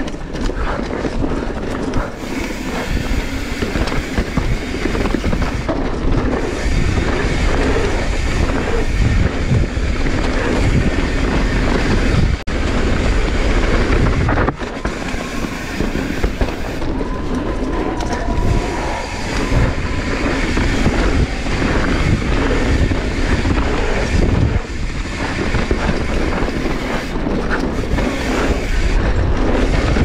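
Mountain bike descending a rough trail at speed: a steady, loud clatter of chain, frame and tyres over rocks and roots.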